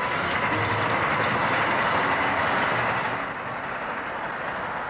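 Passenger train passing at speed, a steady rushing noise that drops about three seconds in to a quieter steady running noise, as heard inside a moving train.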